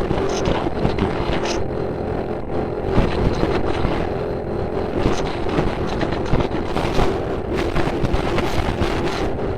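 Steady rumbling noise with a constant low drone held underneath and light crackles on top.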